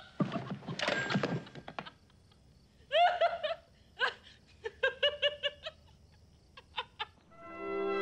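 A woman tumbles off a bed onto the floor with a rustle and a thump, then laughs in a string of short, quick giggles.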